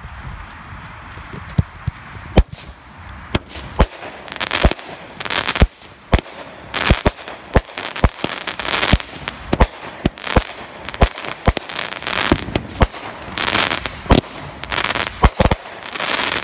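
Consumer fireworks cake firing shot after shot: a string of sharp bangs, several of them followed by crackling bursts.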